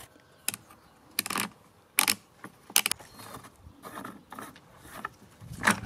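Separate clicks and metal clinks, roughly one a second, as a cordless chainsaw's plastic sprocket cover is loosened and the bar and chain are lifted off by hand.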